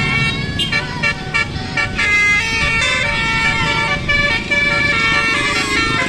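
Multi-tone 'telolet' bus horn of the Basuri type playing a tune over street traffic. It begins with a run of short notes, then holds longer notes that step up and down in pitch.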